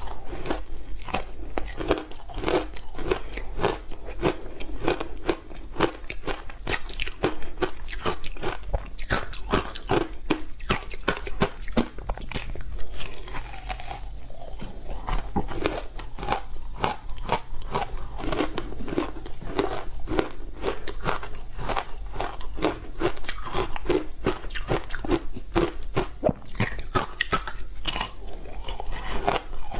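Someone biting and chewing a frozen block of matcha tea and sweet potato powder ice: a dense run of crisp, irregular crunches, several a second, bite after bite.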